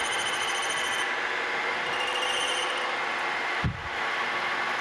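Milling machine running a 1/4-inch end mill through a metal plate, cutting a slot: a steady machine sound with a high squealing whine that comes and goes, and a brief low thump near the end.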